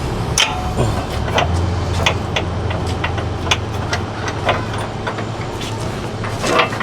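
Scattered sharp metallic clinks and knocks of hand tools working a sway bar link bolt, over a steady low hum.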